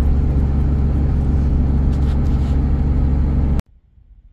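Ford Transit camper van driving at a steady speed on a paved road: a steady engine hum under road and tyre noise. It cuts off suddenly about three and a half seconds in, leaving faint quiet ambience.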